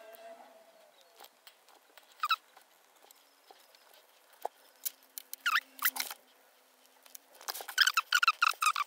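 Short high-pitched squeaks, a few spread out at first and then many in quick succession near the end, with some light clicks between them.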